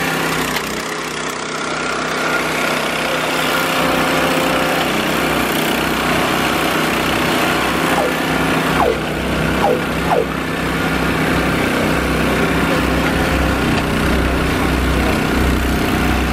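The small engine of rail-destressing track-maintenance equipment running steadily, with a few short knocks about nine and ten seconds in.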